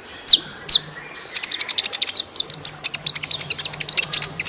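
Kolibri ninja sunbird singing: two sharp, falling whistled notes, then from about a second in a rapid run of short, high twittering chirps.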